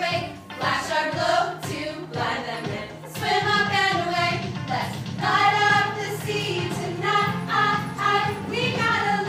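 Music: voices singing a song with instrumental accompaniment.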